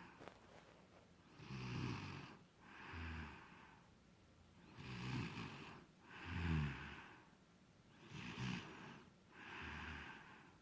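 A sleeping person snoring: three slow breath cycles, each a rattling snore followed about a second later by a smoother, deeper breath. The loudest comes about two thirds of the way through.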